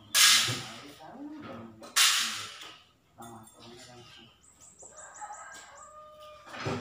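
Two sudden, loud rasps about two seconds apart, made as a reflective sticker sheet is pulled and torn. Near the end a chicken clucks in the background.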